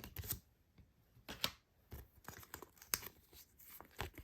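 Photocard packaging handled by hand: a few short, sharp rustles and crinkles of plastic sleeves, with light taps in between.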